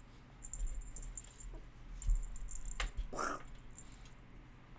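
Soft knocks and rustles as a cat shifts inside an empty steel-and-plastic PC case and a hand moves against it, with a click and then a short breathy rasp about three seconds in.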